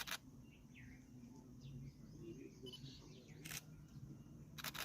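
Camera shutter clicking three times: at the start, about three and a half seconds in, and again near the end. Faint bird chirps and a low steady hum sit underneath.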